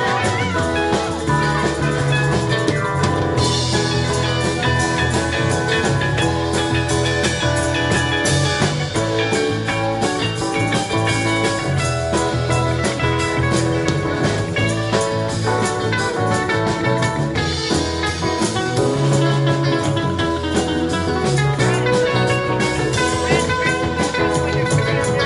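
Live band playing amplified: electric guitars, bass and a drum kit keeping a steady beat.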